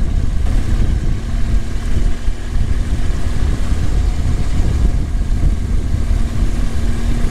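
BMW R1200 GS Adventure's boxer-twin engine running steadily as the motorcycle cruises, under a heavy, even rumble of wind and road noise.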